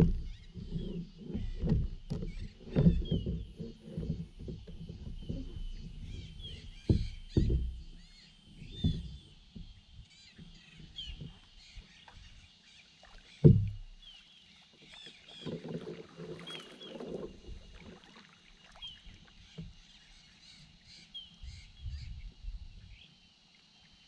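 Kayak paddling: irregular low splashes and knocks as the paddle dips into the water and bumps the plastic hull, busiest early on and again later, with one sharp loud knock about halfway through.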